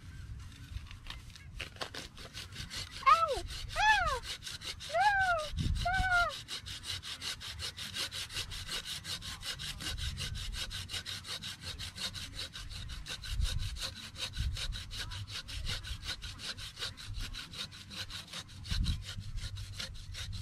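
A hand saw cutting through the trunk of a Christmas tree at its base, in quick, even back-and-forth strokes that start about two seconds in. Four honking calls rise and fall over it between about three and six seconds in.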